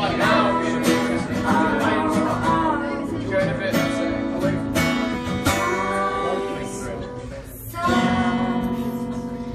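Acoustic guitar strummed in an instrumental passage between sung verses, with a short break about seven and a half seconds in before the strumming picks up again.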